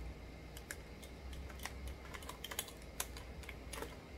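Light, irregular clicks and crinkles of a plastic pouch of bath salts being worked open.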